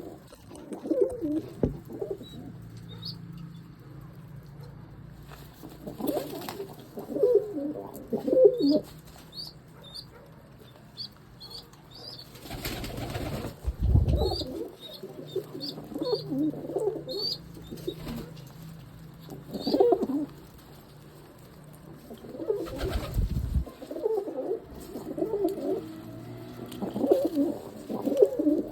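Domestic pigeons cooing over and over, with loud bursts of wing flapping several times. Short high chirps sound in between.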